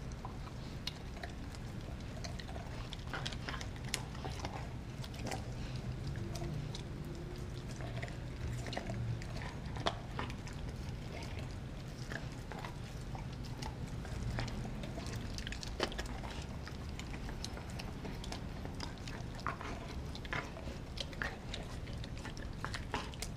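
A pitbull–German shepherd mix dog gnawing on a frozen raw pig's foot: irregular crunches and clicks of teeth on bone and frozen skin, over a steady low hum.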